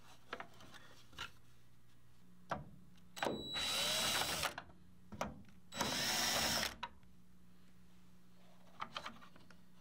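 Cordless drill-driver with a number 3 Phillips bit backing out side plate screws from a trolling motor's plastic control housing. It runs twice, first for about a second and a half, then for about a second. A few light clicks and knocks of handling come before, between and after the runs.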